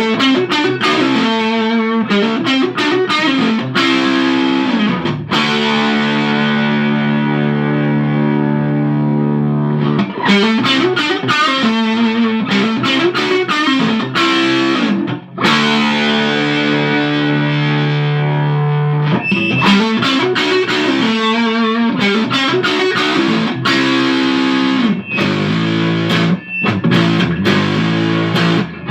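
Electric guitar played through a one-knob op-amp boost pedal, a clone of the Mr. Black Tiger Boost, with its volume knob turned up so the tone gets gritty. Riffs alternate with chords left ringing for several seconds, twice.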